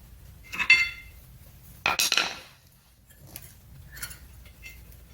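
Metal parts clinking as brake hardware is worked by hand: a ringing clink about a second in, a louder knock about two seconds in, then a few light taps.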